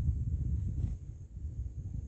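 Wind buffeting the microphone: an uneven low rumble that rises and falls.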